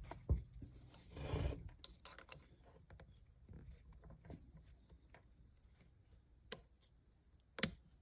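Faint handling of small plastic parts as a 3D-printed PETG-CF ring is worked onto a quick-disconnect hose connector: a brief rubbing scrape, scattered light ticks, and two sharp clicks near the end.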